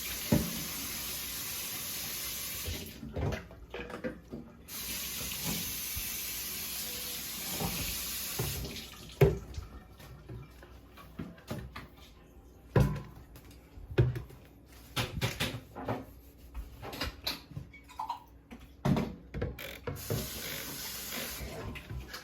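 Kitchen sink tap running, shut off briefly about three seconds in and turned back on, then off; after that, scattered knocks and clatter, and the tap runs again for a moment near the end.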